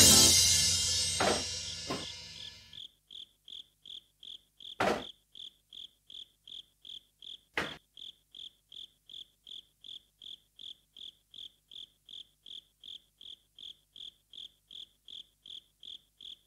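Background music fading out, then a cricket chirping in an even rhythm, about three chirps a second. Two short metallic clanks from steel pots being handled cut in a few seconds apart.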